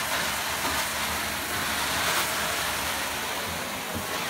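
2-inch carpet-cleaning extraction wand drawing hot water and air up through the carpet: a steady hiss of suction with a faint hum underneath.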